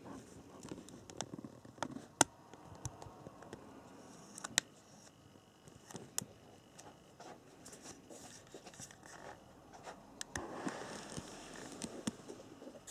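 Faint rustling with a few scattered sharp clicks: handling noise, loudest clicks about two seconds and four and a half seconds in, and a slightly fuller rustle near the end.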